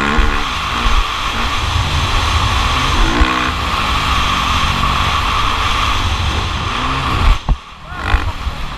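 Motocross bike engine running hard on track under a heavy low rumble, its pitch wavering as the throttle changes. Near the end the sound drops away for about half a second with a sharp thump, then picks up again.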